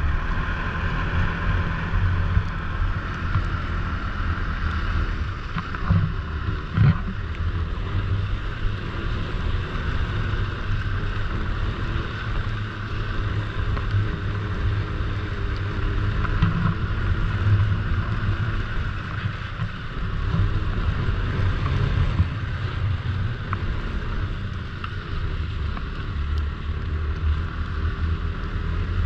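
Snowmobile engine and track running steadily under way, with wind buffeting the microphone. A couple of short knocks about six and seven seconds in.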